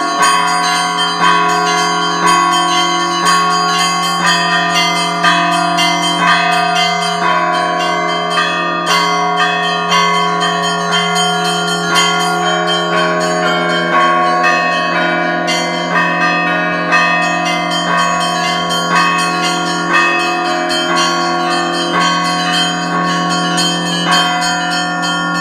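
Russian Orthodox church bells rung together: quick repeated strikes on the small high bells over the long hum of the larger bells, with heavier strokes about once a second.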